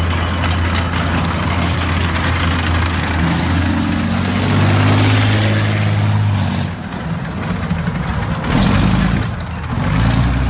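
Diesel engine of a tracked ZSU-23-4 Shilka anti-aircraft vehicle running hard as it manoeuvres. Its pitch climbs steadily for a few seconds, drops off suddenly past the middle, then surges briefly twice near the end.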